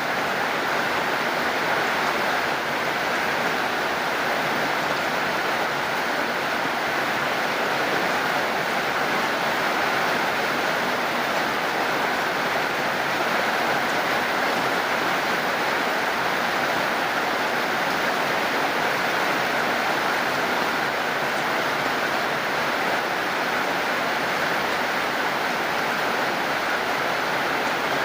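Steady heavy rain, an even hiss without breaks or single drops standing out.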